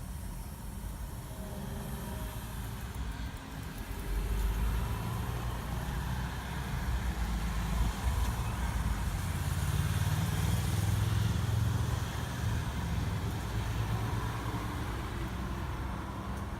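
Traffic noise from a passing road vehicle: a low engine rumble with tyre hiss that builds about four seconds in, is strongest a little past the middle, then eases off.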